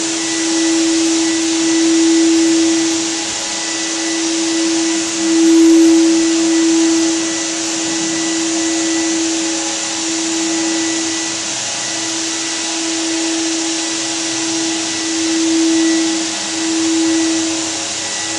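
An electric motor running steadily: a constant whine over an even hiss, swelling a little in loudness now and then.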